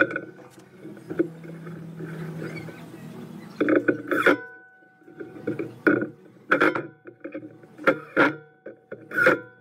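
Wooden drawer box knocking against the bench and being tapped as it is handled and squared up: about eight hollow wooden knocks, some in quick pairs, several ringing briefly.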